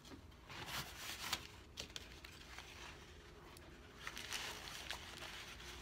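Paper towel being handled, rustling and crinkling in two spells, about half a second in and again about four seconds in, with a couple of light taps between.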